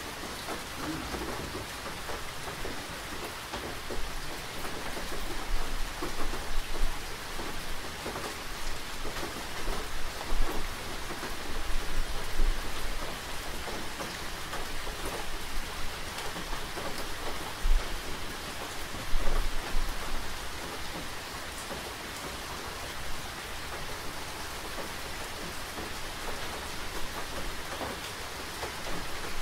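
Steady rain falling, an even hiss, with irregular low rumbles and louder gusts that swell and fade several times.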